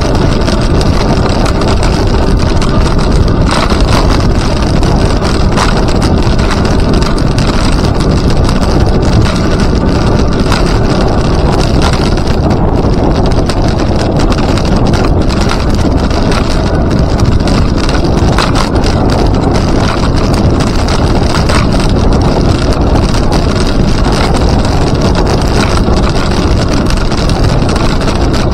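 Wind buffeting the microphone of a moving rider: a loud, steady rumble and hiss with no clear pitch.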